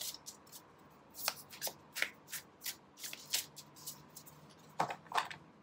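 A tarot deck being shuffled by hand: a run of quick, irregular papery flicks and snaps, a few a second, with a couple of louder ones near the end.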